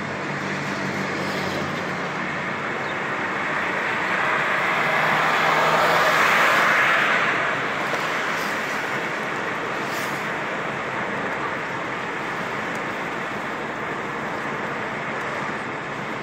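Road and engine noise heard from inside a moving car: a steady rush with a low hum, swelling louder for a few seconds around the middle and then settling back.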